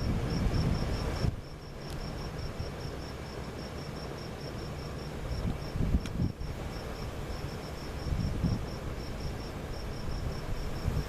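A cricket chirping in an even rhythm, about four or five high chirps a second, over low wind rumble on the microphone that swells in gusts, strongest about halfway through.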